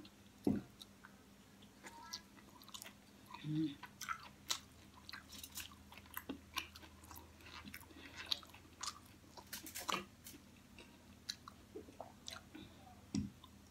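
Close-up chewing of crispy fried pig head, with many small mouth clicks and smacks. Two dull low knocks, one about half a second in and one near the end, from her pet turtle knocking behind her.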